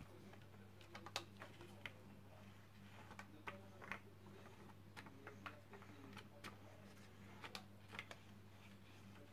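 Faint, irregular clicks and ticks, a couple a second, from a rubber brayer being rolled back and forth over paper on a gelatin printing plate, over a steady low electrical hum.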